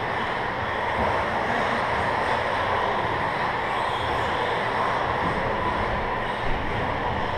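A pack of 1/10-scale electric RC stadium trucks racing on a carpet track: a steady whirr of motors and tyres, with a brief knock about six and a half seconds in.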